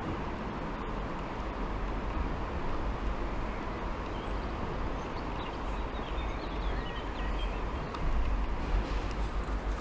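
Steady rumble of traffic on the concrete bridge overhead, growing a little louder about eight seconds in.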